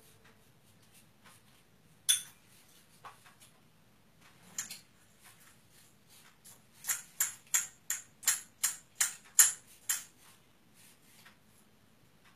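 Tableware clinking: one sharp knock about two seconds in, a few lighter ones after, then a run of about ten quick taps, roughly three a second, from about seven to ten seconds in, as a child knocks a utensil against a plate.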